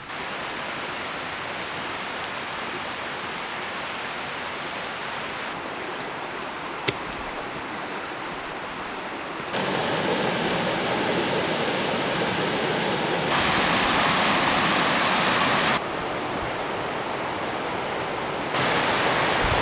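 Rushing water of a rocky creek running over small cascades: a steady hiss that steps abruptly louder and softer several times, with a single sharp click about seven seconds in.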